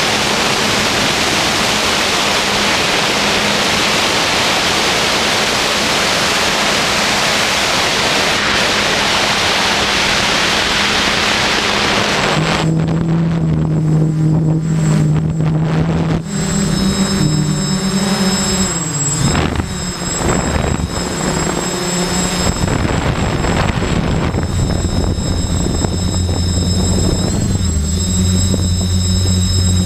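Quadcopter's electric motors and propellers heard from the onboard camera. For the first dozen seconds a steady rushing hiss of air covers them. Then the motor hum comes through as several steady tones with a thin high whine, and these shift and slide down in pitch about two-thirds of the way in as the copter slows low over the hilltop.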